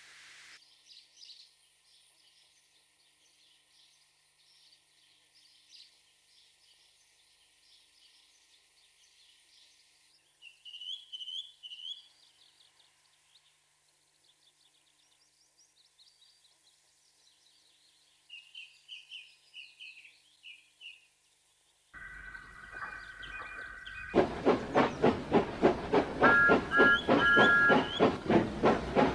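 Faint birdsong with a few short bursts of chirping. Then, about 22 s in, a steam locomotive starts up loudly: a steady hiss with whistle-like tones, then from about 24 s a fast, even chuffing at roughly three beats a second, with a short two-note steam whistle partway through.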